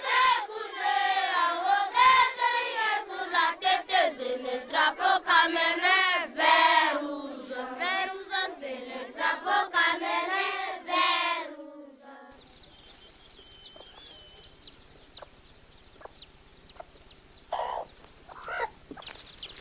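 A group of voices singing together, cutting off suddenly about twelve seconds in. It gives way to quieter bird chirping, with two short louder calls near the end.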